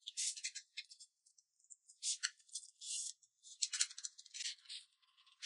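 A person slurping and chewing noodles in spicy sauce: a string of short, irregular slurps and mouth smacks.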